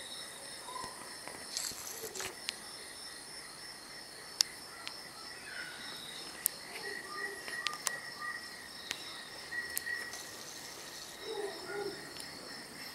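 A night-time chorus of crickets and other singing insects, trilling steadily at several pitches. A few sharp clicks stand out above it.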